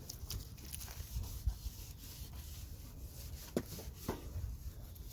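Cloth rubbing and wiping over a wet plastic headlight lens, rinsing off the headlight restorer's buffing compound. It is an irregular scratchy rubbing with small ticks, and two short falling squeaks about three and a half and four seconds in.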